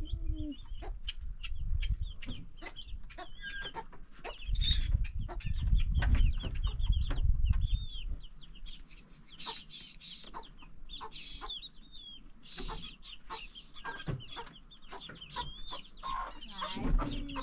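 Chickens clucking, with many short high chirps throughout. A loud low rumble runs from about four to eight seconds in.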